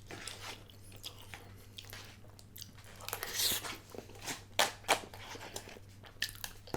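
Close-miked chewing and mouth noises of a person eating a microwaved frozen dinner, with scattered small clicks and two sharp clicks about four and a half seconds in. A steady low hum runs underneath.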